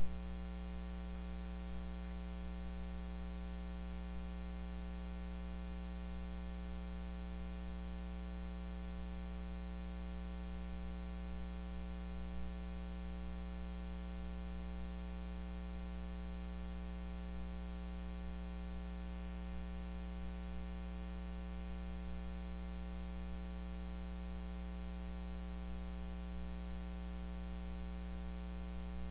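Steady 60 Hz electrical mains hum with its buzzy overtones and a background hiss in the sound-system feed, after one sharp knock right at the start.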